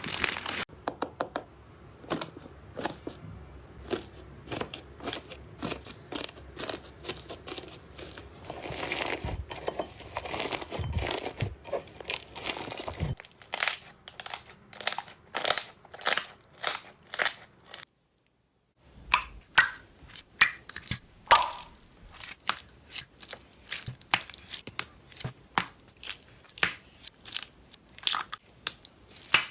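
Slime being pressed and squeezed by hand, giving crunchy crackling and runs of sharp pops and clicks. The texture changes partway through, and there is a brief gap of silence.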